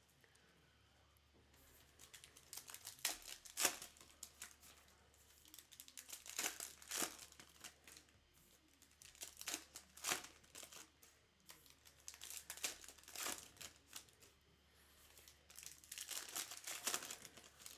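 Trading-card pack wrappers crinkling and tearing as packs are ripped open, in about five bursts a few seconds apart.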